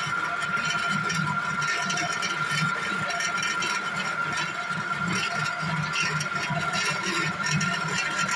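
Coconut-processing machine running steadily, with a whine held on one pitch over a pulsing low rumble. Shredded coconut churns in its drum with a dense scatter of small rattles.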